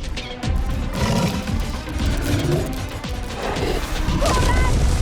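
Cartoon action soundtrack: dramatic music under crashing sound effects, with a short animal-like cry near the end.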